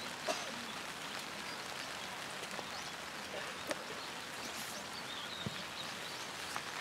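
Steady hiss of light rain with scattered drops ticking.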